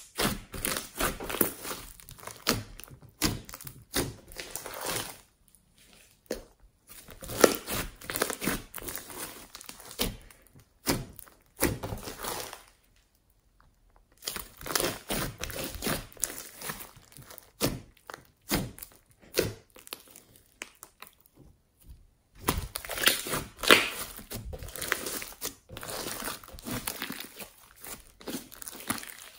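Foam-bead slime being stretched, folded and squeezed by hand, giving runs of quick sticky clicks, pops and crackles, broken by a few short pauses.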